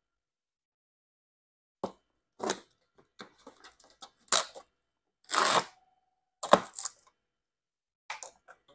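Cardboard laptop box being handled and opened: scattered scrapes, clicks and crackles starting about two seconds in, with one louder half-second tearing sound about five seconds in.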